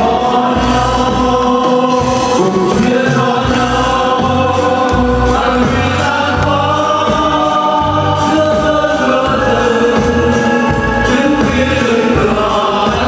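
Background music: a song with sustained choral singing over a steady bass beat.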